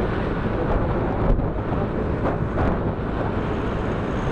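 Wind buffeting the microphone of a moving motor scooter, with road and traffic noise underneath and a few short thumps.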